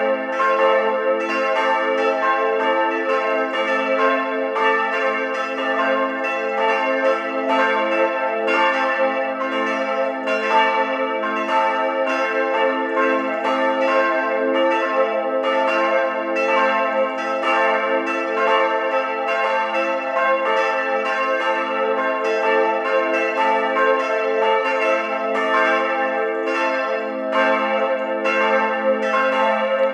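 Several church bells of a village parish church ringing together in a continuous full peal, their strokes overlapping in a steady, uneven pattern with long ringing tones.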